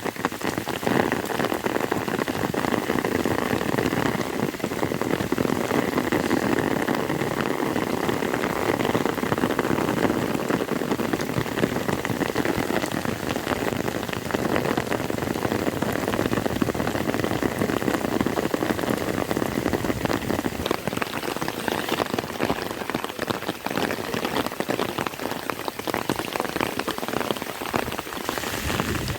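Heavy rain falling steadily, a dense, unbroken spatter of drops hitting a surface.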